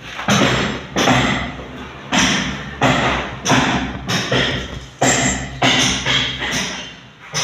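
Repeated heavy thuds, about one every 0.7 seconds in a steady rhythm, each with a short ringing tail.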